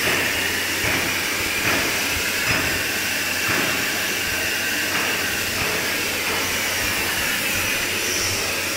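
Steady hiss of workshop machinery, with a few light knocks in the first half.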